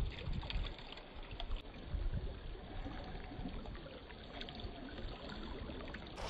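Shallow river water running and trickling around a wading angler's legs and hands as he lowers a sockeye salmon into the current, with a few low bumps from the handling.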